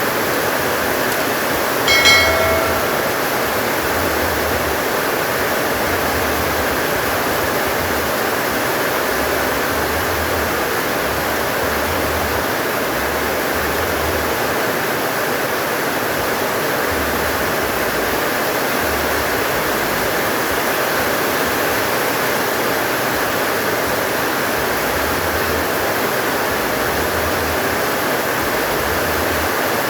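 Heavy rain pouring steadily. A short ringing ping sounds once, about two seconds in.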